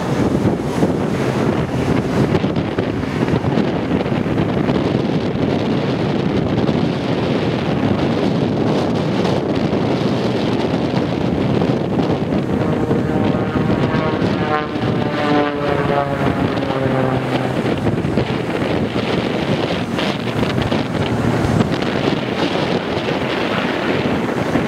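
Heavy wind buffeting the microphone. Midway, the Extra 300's propeller engine is heard for a few seconds as a drone whose pitch slides as the plane dives and manoeuvres.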